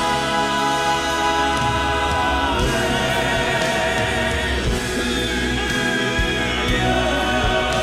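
Southern gospel male quartet singing live in close harmony over band accompaniment, holding long notes with vibrato and moving to new chords twice.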